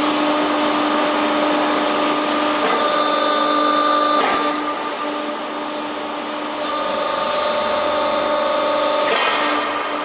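Hydraulic power unit of a pedestal-mounted material handler running with a steady whine over a hiss. Its tone shifts with a sharp click about four seconds in and changes again near the end as the orange-peel grab is opened and closed.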